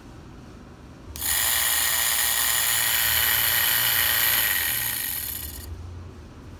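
Homemade brushed DC electric motor with copper-wound field coils running: a high-pitched whir with steady tones that starts suddenly about a second in, holds steady, then dies away as the rotor spins down near the end.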